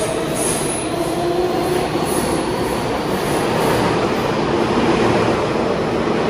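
New York City subway train on the IND Queens Boulevard Line running with a steady loud rumble, with some wheel squeal mixed in.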